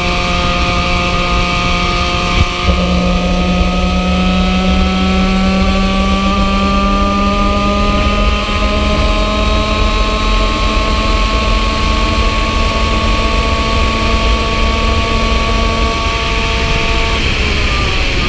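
Yamaha KT100 single-cylinder two-stroke kart engine at full throttle, its pitch climbing slowly and steadily down a long straight. Near the end the pitch falls away as the throttle is lifted for a corner.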